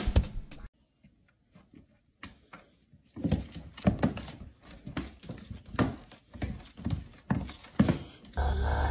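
Two cats play-fighting on a hardwood floor: a quick, irregular run of thumps and scuffles from their bodies and paws, starting a few seconds in after a short near-silent gap.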